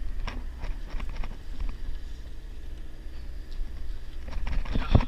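Low steady rumble of the fishing boat's engine running, with scattered knocks and clicks and a louder burst of knocks near the end.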